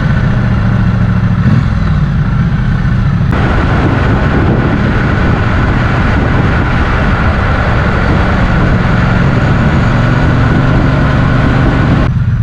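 Motorcycle engine running steadily, with a broad rushing noise over it that starts abruptly about three seconds in and stops just before the end.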